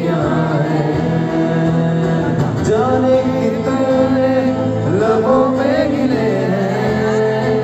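A man singing a slow song while playing an acoustic guitar, amplified through a PA system in a hall. His long, held notes glide between phrases over the steady guitar chords.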